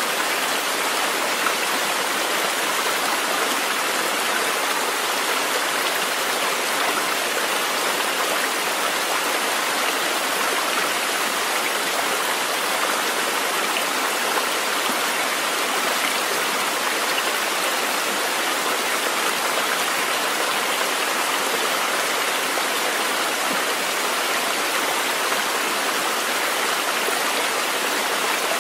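Running water from a nature-sounds recording: a steady, even rush, unchanging, with no other sound standing out.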